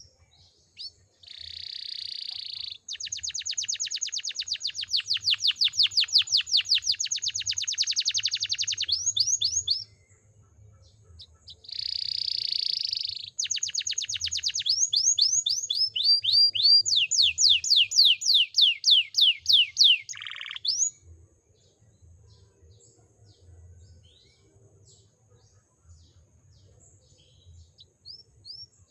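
Domestic canary singing a rich, tutored song: two long phrases of fast trills and buzzy rolls of repeated high notes, the second ending about three quarters of the way through, followed by only faint scattered chirps.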